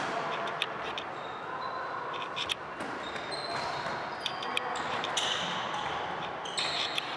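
Game sounds of an indoor tchoukball match: a ball bouncing in scattered sharp knocks over the steady background noise of the sports hall.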